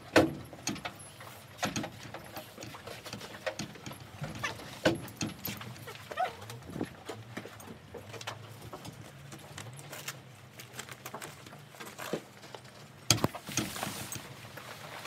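A horse's turnout rug being unbuckled and pulled off: the rug's fabric rustles, and the buckles and straps click and knock. A louder stretch of rustling near the end is the rug sliding off.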